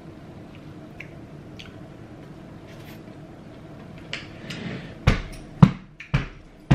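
Collard greens being chewed close to the microphone, with faint wet mouth clicks. In the last two seconds come four heavy thumps about half a second apart.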